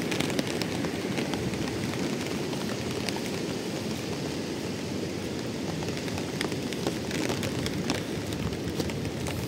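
Steady rain and wind in a storm: a dense, low rushing noise with many small scattered ticks of raindrops.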